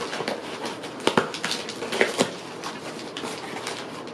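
Cardboard box being pulled open by hand, with packing paper and wrapping rustling and crackling, and a few sharper snaps about one and two seconds in.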